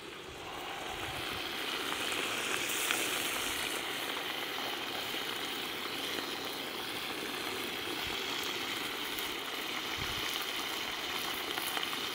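Beef pieces sizzling in hot oil in a cast-iron kazan, a steady sizzle with faint crackles that swells a little in the first couple of seconds. The meat has released a lot of liquid, so it is bubbling in its own juices rather than searing dry.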